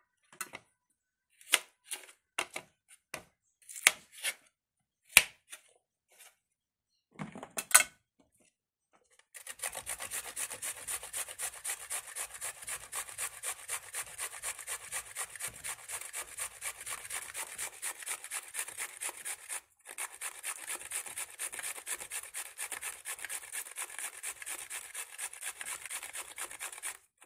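A few scattered knocks and clicks, then, about nine seconds in, a peeled vegetable being grated on a stainless steel box grater: a steady run of rapid rasping strokes, with a brief break about two-thirds of the way through.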